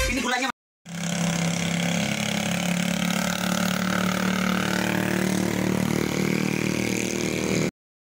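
A motor engine running steadily, a low hum that holds one pitch, cutting off abruptly near the end.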